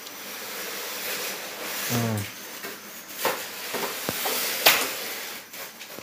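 A new LG refrigerator being shifted by hand: scraping and rustling handling noise with a few sharp knocks, the loudest about three-quarters of the way through, and a brief grunt or word about two seconds in.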